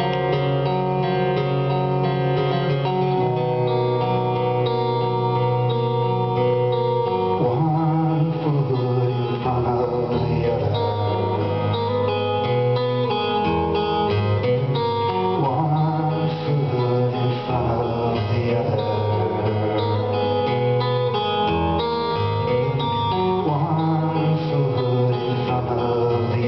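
Amplified acoustic guitar playing an instrumental intro, with sustained ringing chords that change about every eight seconds.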